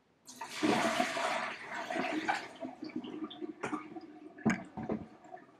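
Water gushing and splashing in a plastic brewing bucket being rinsed at a kitchen sink, loudest for about two seconds and then tailing off. Near the end there are a few sharp knocks as the plastic bucket is handled.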